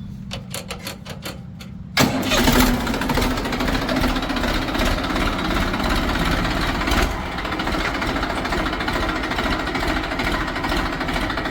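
A diesel engine starting: a few seconds of quieter clicking, then about two seconds in the engine catches suddenly and runs steadily and loudly.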